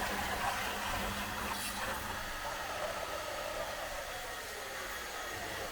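Makita 240 V electric pressure washer running steadily, with the even hiss of its water spray.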